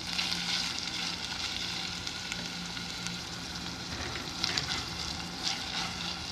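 Minced meat and onion frying in ghee in a pan, a steady sizzle, with a utensil scraping through the meat a couple of times as it is stirred and broken up.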